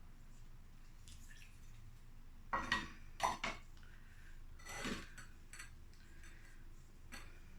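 A few light knocks and clinks of a flowerpot and gardening things being handled, in small clusters about two and a half seconds in and again near five seconds.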